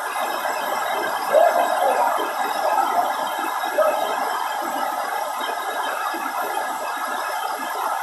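Waterfall's steady rushing noise, with a few short gliding calls over it, about a second and a half and three seconds in.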